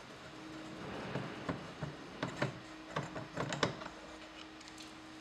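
Screwdriver clicking and scraping in the plastic door-handle recess of a ZAZ Vida's door card as a self-tapping screw is backed out: a run of small irregular clicks from about one to four seconds in.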